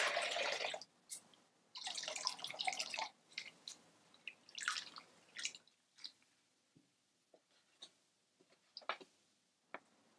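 Water poured from a jug into a glass bowl, two short pours in the first three seconds, followed by scattered small clinks, taps and splashes as glassware and food are handled.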